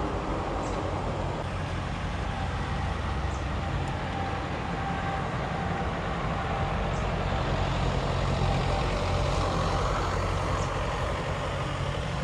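Steady low rumble of nearby road traffic, swelling a little just past the middle.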